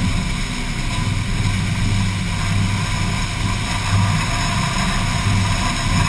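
Combine harvester running while it unloads shelled corn through its auger into a grain cart: a steady low engine drone.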